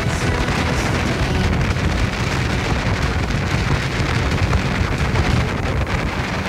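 Loud, steady rush of wind buffeting the microphone and water noise from a boat running at speed over open sea.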